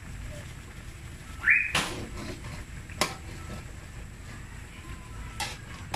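Spoon scraping and knocking against a metal cooking pot while stirring: a short scrape then a sharp knock about one and a half seconds in, and two lighter knocks later.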